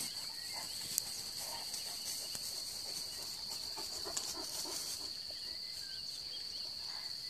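Steady high chirring of crickets, with a few faint low grunts from wild boars feeding in the meadow. A single sharp click about a second in.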